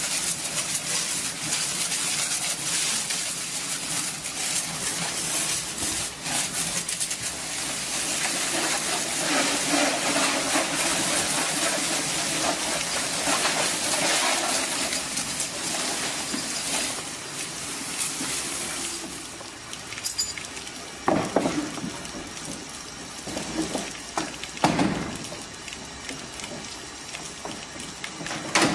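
High-pressure water jet spraying against the metal loading ramp and gates of a livestock trailer, a steady hiss and splatter. The spray stops about two-thirds of the way through, leaving lighter splashing and a few sharp knocks, the loudest near the end.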